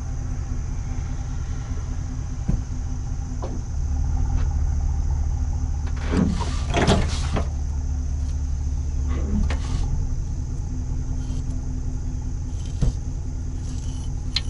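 Pickup truck engine running as the truck reverses slowly, its low hum swelling for several seconds in the middle. A few sharp metallic clicks and a short squeal come from the hitch's stinger sliding into the receiver head.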